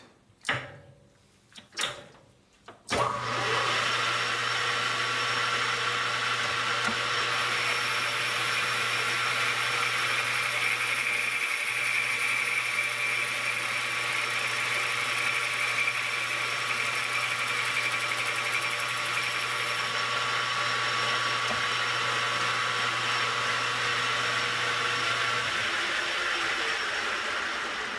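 Metal lathe running under power feed while a boring bar takes a light 5 thou cleanup cut inside the bore of a hub. It starts about three seconds in, after a few clicks, as a steady hum with a hiss. A higher hiss rides on top from about a quarter of the way in to about two-thirds, and the hum stops near the end.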